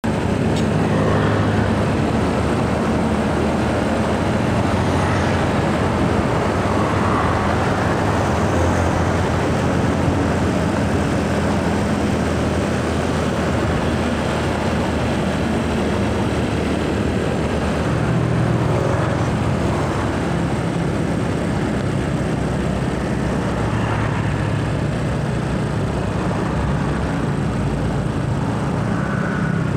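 Steady road traffic: the low running of a diesel tanker truck's engine as it rolls past, with tyre noise on asphalt and motor scooters going by.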